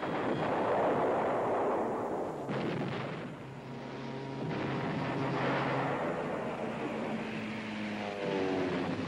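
War-film battle sound effects: heavy anti-aircraft gunfire and blasts over the drone of attacking aircraft engines, with a falling engine note near the end as a plane passes.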